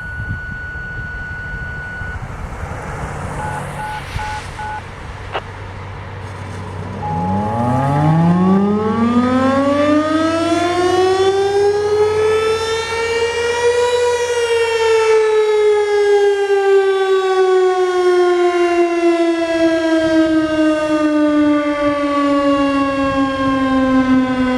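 Steady electronic activation tones sound first. Then a Federal Signal STH-10 electromechanical fire siren winds up, its single pitch rising over about six seconds to a peak, and then slowly falls as it winds down on its weekly test.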